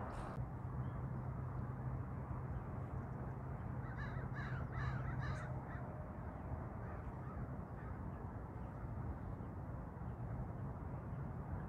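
American crows cawing: a quick series of about five caws about four seconds in, over a steady low hum.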